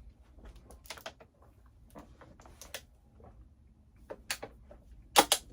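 Scattered sharp clicks and taps, faint at first, with the loudest two coming close together near the end.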